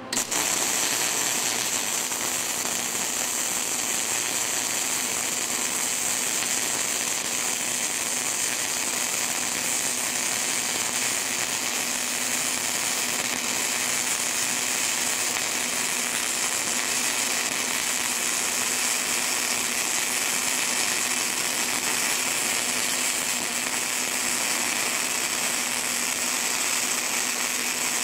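A 110-volt gasless flux-core wire-feed welder's arc striking up and then crackling steadily as a bead is run, with a faint steady hum underneath.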